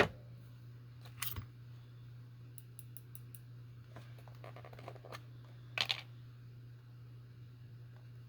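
Small craft items being sorted and handled on a desk: a sharp click at the start, then scattered light clicks and ticks and a brief rustle about six seconds in, over a steady low hum.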